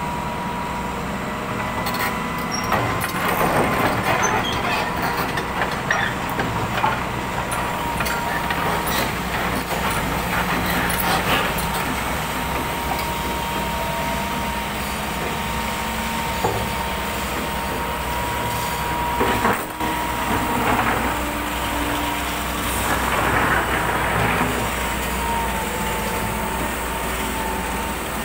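Heavy diesel engine running steadily, with a constant high whine and a few knocks.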